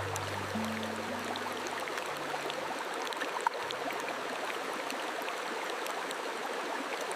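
Steady running-water ambience like a flowing stream, with a few faint clicks. Low held tones sound underneath and fade out about three and a half seconds in.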